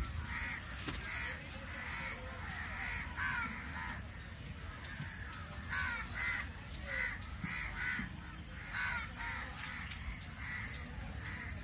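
Birds calling: a run of short repeated calls, several close together at times, through the whole stretch, over a low steady background rumble.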